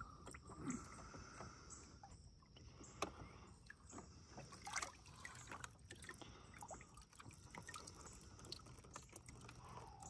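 Near silence, with faint water sounds around a small boat: light splashes and drips and a few soft knocks.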